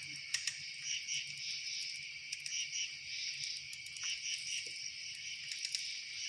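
A steady, pulsing chorus of crickets, with a few scattered sharp crackles like a campfire's, the clearest near the start and around the middle.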